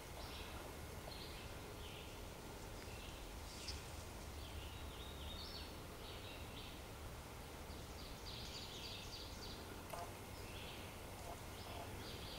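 Songbirds chirping and calling in short, repeated notes in spring woods, faint over a low steady rumble, with a single soft click about ten seconds in.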